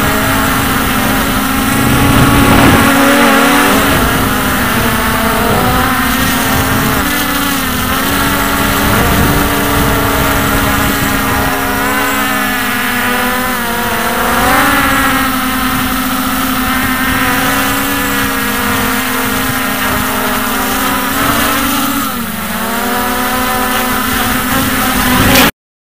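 Hubsan X4 H501S quadcopter's motors and propellers buzzing in flight, heard close-up from a camera strapped to the airframe. The pitch shifts up and down with throttle changes, then the sound cuts off suddenly near the end.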